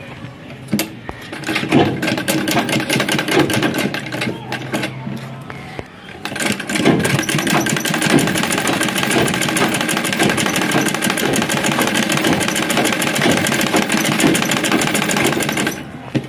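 Sewing machine stitching in a fast, even clatter of needle strokes. It starts about a second in, pauses briefly twice early on, then runs steadily until it stops just before the end.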